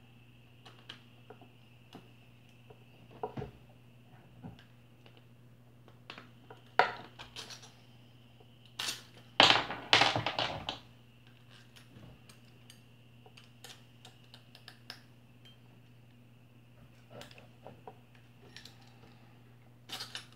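Clicks, clinks and knocks of metal fan-motor parts being handled and fitted together by hand: the stator and motor housing. The loudest rattle comes about nine to eleven seconds in, over a faint steady hum.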